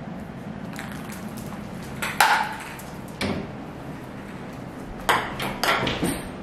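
A small plastic ball, batted by a cat, clicking and bouncing on a hard tile floor: a sharp knock with a brief ring about two seconds in, another a second later, and a quick run of clicks near the end.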